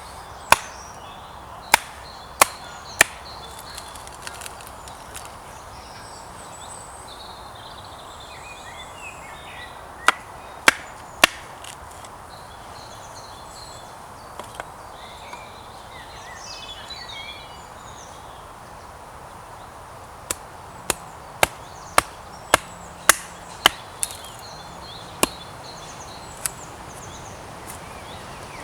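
Small axe striking and splitting lengths of hazel coppice, sharp knocks in bursts: four in the first few seconds, three about ten seconds in, then about ten in quick succession from about twenty seconds in.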